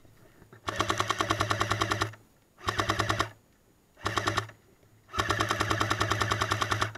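Airsoft M60 light machine gun firing four full-auto bursts: a fast, even rattle of shots over the hum of its motor. The first and last bursts last about a second and a half each, and two short bursts come between them.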